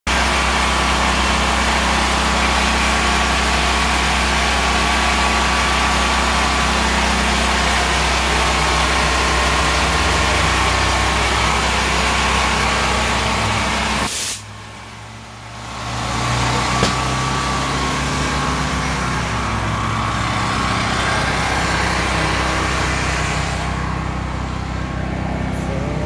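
An engine running steadily at idle, a constant drone with a low hum. It drops away abruptly about 14 seconds in and comes back a couple of seconds later.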